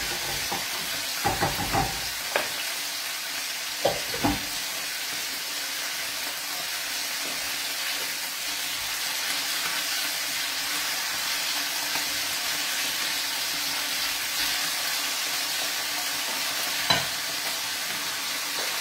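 Thin pork slices sizzling steadily as they fry in a frying pan, with a few sharp clinks of a utensil against the pan a second or two in, around four seconds in and near the end.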